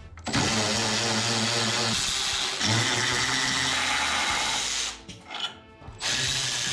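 A handheld power tool runs in two bursts. The first lasts about four and a half seconds, and its pitch shifts about two seconds in. The second starts shortly before the end.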